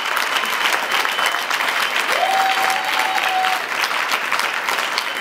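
A crowd applauding steadily, many hands clapping fast. About two seconds in, a single held tone rises in and lasts about a second and a half over the clapping.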